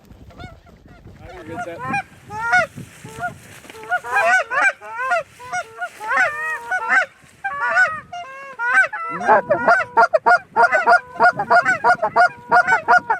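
A flock of Canada geese honking, many short overlapping honks that grow thicker and louder about two-thirds of the way through.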